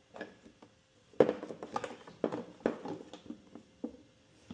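Irregular light clicks and knocks of kitchen items being handled, picked up and set down, the loudest about a second in.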